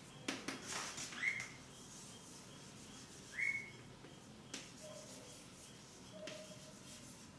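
Handwriting strokes: scratchy rubbing of a writing tool on a surface, a few separate strokes, with two short squeaks that rise in pitch about a second in and again about three and a half seconds in.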